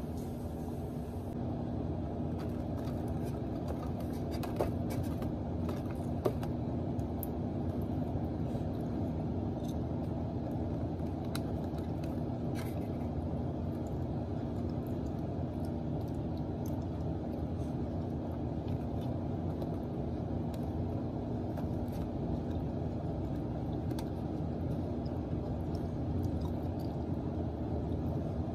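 Steady low rumbling hum with a constant tone throughout. Over it come a few light clicks and taps of a plastic fork against a clear plastic fruit container, two of them sharper about five and six seconds in.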